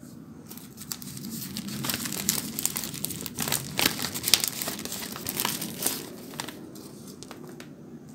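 Dry crinkling and rustling as hands handle pressed, dried celosia leaves and the sheets they were kept in. The crackles come thick and irregular for most of the time, then thin out and go quieter near the end.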